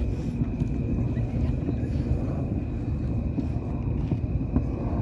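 Wind rumbling on the microphone, with a thin steady high whine and a few faint, scattered pops of distant fireworks.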